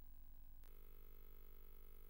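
Near silence: a faint steady hum, whose tones shift slightly a little over half a second in.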